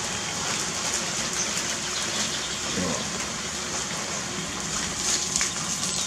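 Steady rushing hiss of running water.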